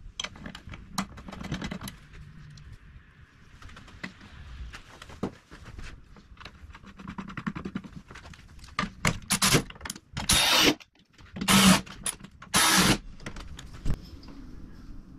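Small hard parts being handled: scattered clicks and rattles. About ten seconds in come three loud, short rasping bursts, each lasting under a second.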